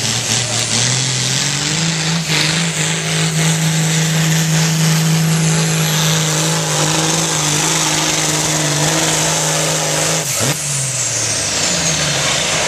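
John Deere farm tractor's diesel engine pulling a weight-transfer sled at high revs under full load: its note climbs in the first second and holds steady. About ten seconds in the pull ends and the revs fall away, with a high whine sliding down at the same time.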